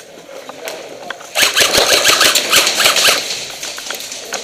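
Airsoft guns firing rapid full-auto bursts, a fast clattering stream of shots that starts about a second and a half in, is loudest for about two seconds, then thins out.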